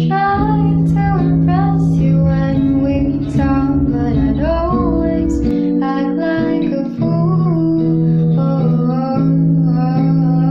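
Background music: plucked acoustic guitar with a singing voice carrying a gliding melody.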